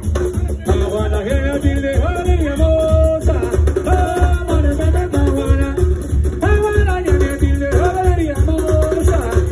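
Live band playing loud dance music over a PA: a stepping melody line over a steady, fast bass-and-drum beat, with congas in the mix.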